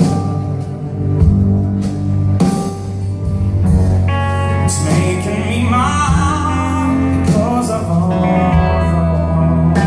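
A live blues band playing: guitars, bass and drums in a full, steady groove, with a sung vocal line wavering over it from about five seconds in.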